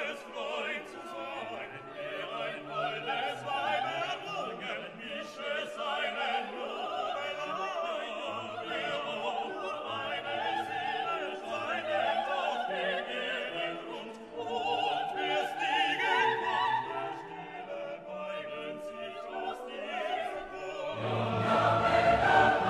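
Background music: operatic singing with orchestral accompaniment, swelling louder near the end.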